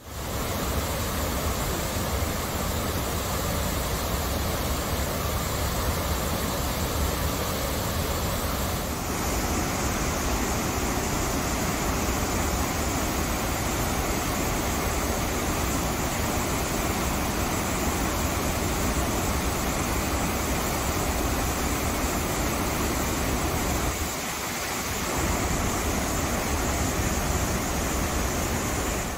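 Taughannock Falls and its creek in flood after heavy rain, the water rushing and crashing loudly and steadily. The sound shifts abruptly about nine seconds in and again about 24 seconds in.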